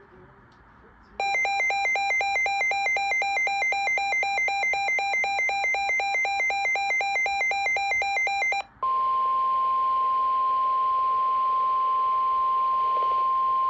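Emergency Alert System alert tones. First comes about seven seconds of rapid, pulsing electronic two-tone beeping. After a short gap, a steady single-pitch warning tone holds for about five seconds, the weather-radio alarm tone that comes before a severe thunderstorm warning.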